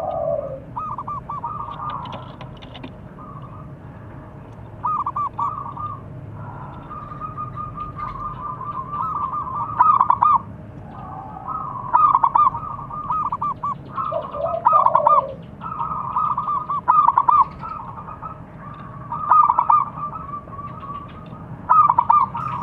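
Zebra doves (perkutut) cooing: phrase after phrase of rapid staccato coos, repeated every two to three seconds.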